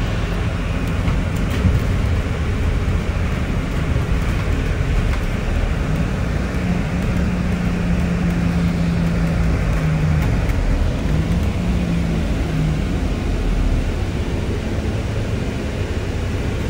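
Interior of an Alexander Dennis DL20 double-decker bus under way: steady engine and road noise with the air conditioning loud throughout. A steady low hum joins for about four seconds around six seconds in, and again briefly a little later.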